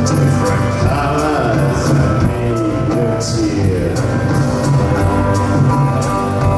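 Live band music: a male voice singing over a plucked long-necked lute and drums keeping a steady beat.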